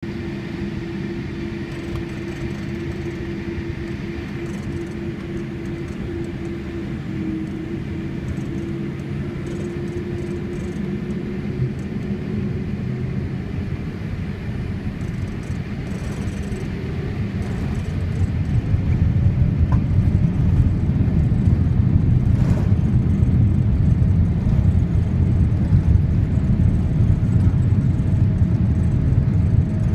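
Boeing 787 cabin sound as the GEnx engines go from low power to takeoff thrust: a steady engine hum and rumble, then just past halfway the rumble steps up sharply and a faint rising whine joins it as the jet begins its takeoff roll.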